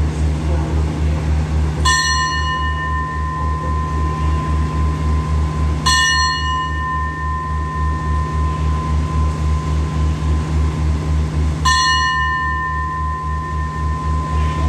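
A metal bell struck three times, about two, six and twelve seconds in, each strike ringing on with a long clear tone, in the way a Thai station bell is rung for a train. Under it, the standing train's diesel engine idles with a steady low throb.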